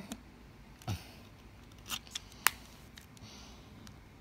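Plastic building-brick pieces clicking and knocking as a wing section is pressed onto an airliner model's fuselage: several sharp clicks, the loudest about two and a half seconds in.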